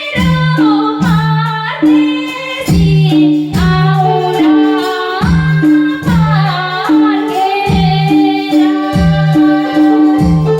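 A woman singing a Nepali song over a music backing track, with a steady low drum beat under the melody.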